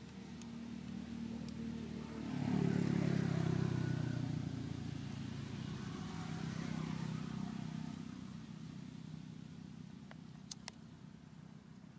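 A motor vehicle's engine running steadily, swelling louder about two seconds in and then slowly fading away. Two sharp clicks come near the end.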